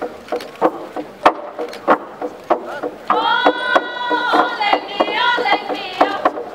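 Phom log drum, carved from a single log, beaten with wooden beaters in quick, uneven strokes, about three a second. From about three seconds in, a group of voices joins in with a long chanted call for a couple of seconds.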